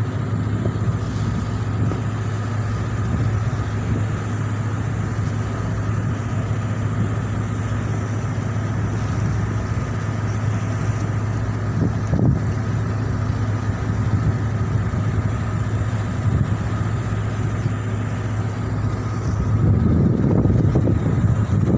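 Boat engine running steadily with a low drone, with wind on the microphone; the sound swells louder near the end.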